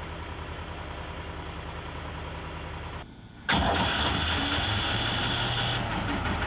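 Enclosed lifeboat's diesel engine running inside the cabin, a steady drone with a fast even beat. About three and a half seconds in it breaks off briefly, then comes back louder at the helm, with a high whine over it for about two seconds.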